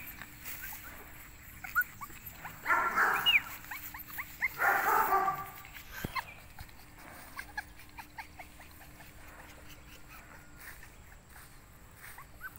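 Month-old Bắc Hà puppies giving short, high-pitched whimpers and yips, scattered mostly through the first half. Two louder bursts of noise come about three and five seconds in.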